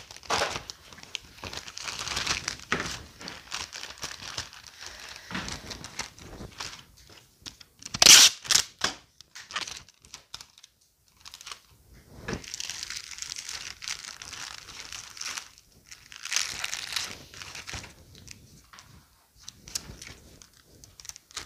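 Packaging being handled, crinkling and rustling in irregular spells, with a short loud burst of crackles about eight seconds in.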